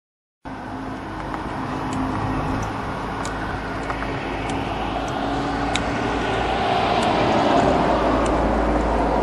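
Road traffic noise on a street: a steady hum and rumble of passing vehicles, growing louder about three quarters of the way through as a vehicle goes by. The sound cuts in suddenly and cuts off suddenly.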